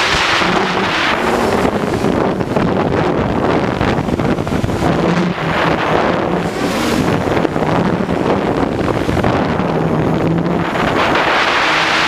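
Hexo+ quadcopter drone's motors and propellers buzzing close to the microphone, the pitch wavering up and down as it flies, under heavy wind rush on the microphone.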